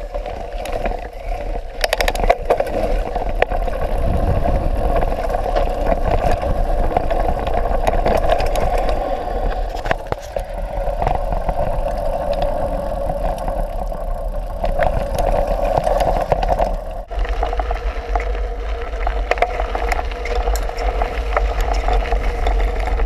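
Mountain bike ridden over a dirt trail, heard from a camera riding with it: steady wind and tyre rush with frequent rattles and knocks from the bike over rough ground.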